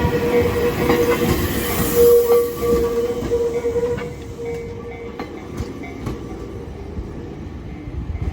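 A passing train rumbling on the rails with a steady whine, loudest in the first half, then fading about four seconds in, with a few sharp clacks from the wheels over rail joints after that.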